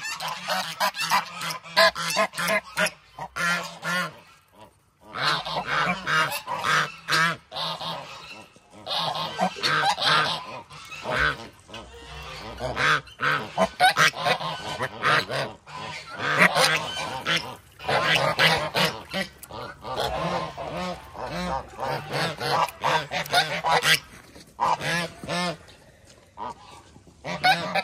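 A group of geese honking and calling almost without pause, many short overlapping honks, with a brief lull about four seconds in. They are laying females being given their feed.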